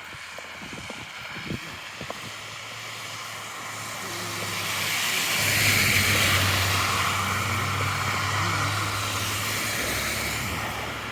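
A vehicle drives past on the street, its tyre noise and engine swelling to a peak about six seconds in and then fading away.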